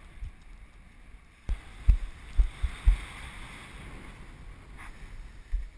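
Wind buffeting the camera microphone on an open beach: a low rumble with several strong low thumps a second or two in, and a steady hiss.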